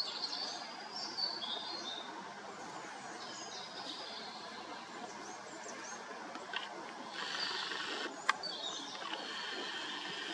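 Songbirds singing short, high, chirping phrases over a steady outdoor hiss, with a spell of rustling about seven seconds in and a single sharp click just after eight seconds.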